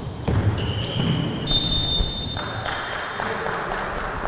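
Basketball bouncing on a gym floor, a few thuds in the first two seconds, with short high-pitched squeals over them, then an even murmur of the hall.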